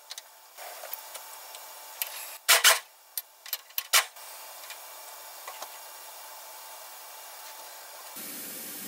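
Sharp metal clinks about two and a half seconds in, then a few lighter ones, as a tap and its holder are handled and fitted into a milling machine's spindle. A steady background noise runs underneath.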